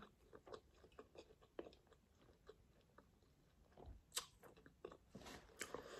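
Near silence, with faint scattered small clicks and taps, a few slightly stronger ones in the second half.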